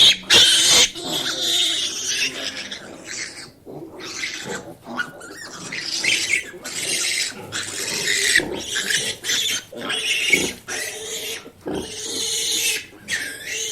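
Domestic pigs squealing and grunting, one harsh call after another with only brief pauses.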